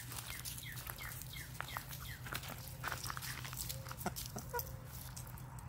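Easter Egger and White Leghorn hens giving short soft calls, quick falling notes mostly in the first two seconds, among many sharp clicks of beaks pecking at a biscuit held in a hand.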